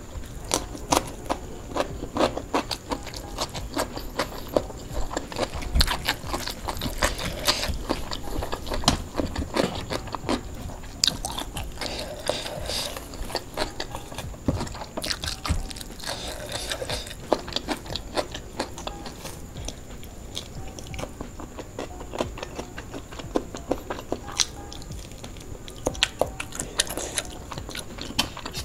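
Close-miked eating sounds: chewing and lip-smacking on fried duck and rice eaten by hand, with many irregular sharp clicks and crackles as the fried duck is bitten and pulled apart.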